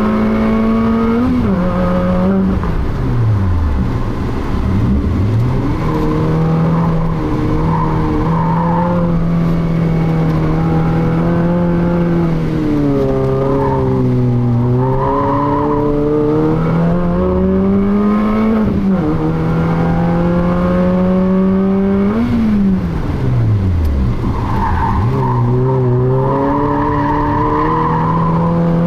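A small hatchback's engine heard from inside the cabin under track driving: revs climb, then fall sharply several times as the driver shifts or lifts off. Tyres squeal in the corners a few times, longest near the end.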